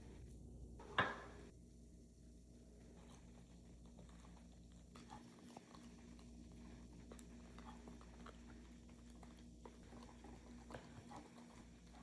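A dog eating its dinner: one sharp knock about a second in, then faint scattered clicks of chewing.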